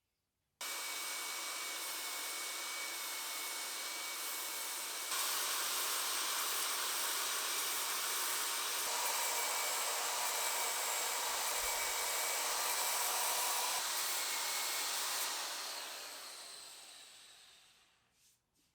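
A steady rushing, blowing noise like an air blower or vacuum motor. It starts abruptly, gets a little louder about five seconds in, then fades away over the last few seconds.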